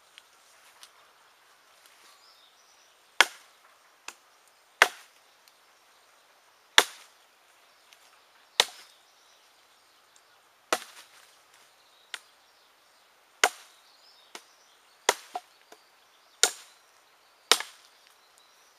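Down Under Outback Bowie knife, a heavy 11-inch 440C blade, chopping into a small log: about nine sharp woody chops roughly every one and a half to two seconds, with a few lighter taps between them, coming closer together near the end.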